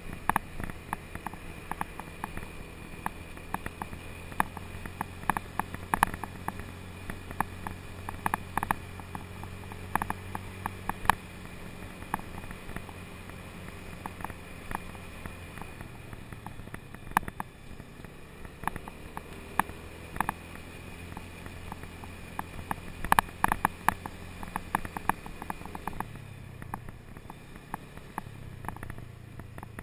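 Scooter engine running steadily as it rides along, with its low note changing about halfway through and again near the end. Frequent sharp clicks and rattles ride over it, most of all about three quarters of the way through.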